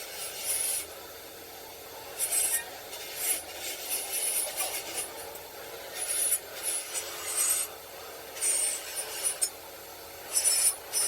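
Rasping strokes of a hand tool scraping or filing, in irregular bursts of about half a second to a second each.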